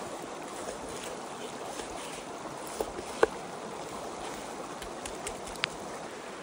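A river rushing steadily, with a few sharp knocks of a large knife cutting through steak onto a wooden board, the loudest a little after three seconds in.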